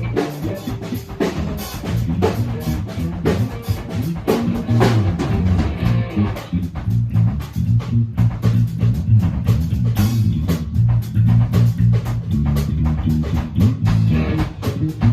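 Electric bass guitar playing a choppy funk groove over a drum beat.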